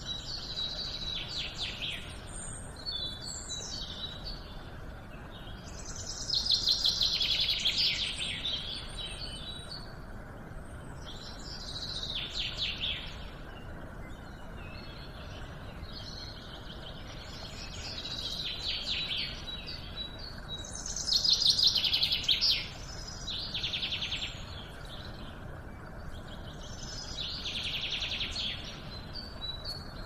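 Shallow stream running over rocks, a steady rushing of water, with songbirds singing short trilled phrases every few seconds; the loudest phrases come about a quarter of the way in and again a little past two-thirds.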